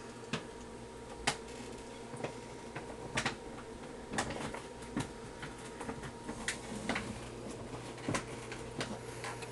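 Irregular clicks, taps and light rattles, about one or two a second, from a cat getting into things in the background, over a steady low hum.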